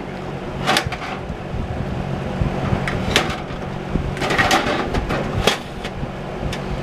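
A hand tool prying and scraping at a plastic plug in a box fan's housing, giving several separate clicks and scrapes over a steady low hum.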